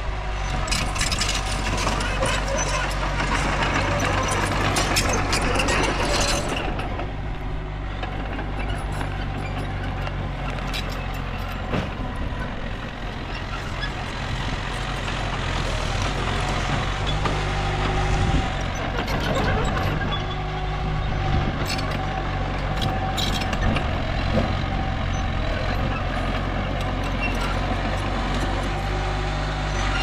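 Mini bulldozer engine running steadily under work, its pitch shifting a few times, with scattered sharp clanks over the top.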